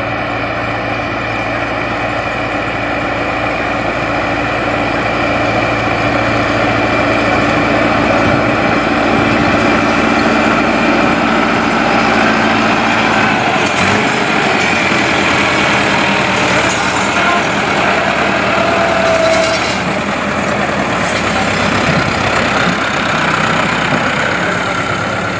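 Massey Ferguson 385 tractor's diesel engine running steadily under load as it pulls a potato planter through the ridged field.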